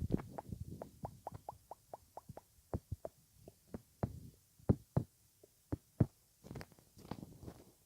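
ASMR mouth sounds: a quick run of wet clicks and pops from the lips and tongue, a few a second, with a louder pop now and then.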